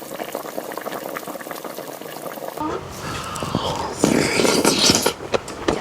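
Liquid bubbling in a cooking pot, a steady hiss full of small pops. About two and a half seconds in it changes abruptly to a fuller, louder liquid noise that is strongest near the end.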